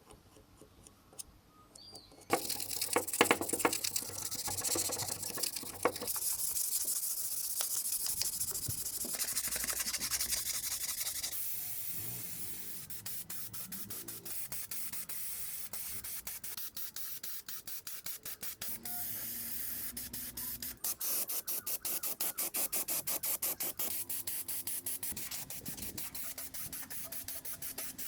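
Paint spraying: a steady hiss of spray coats such as filler and primer, starting about two seconds in and running in several stretches that change abruptly.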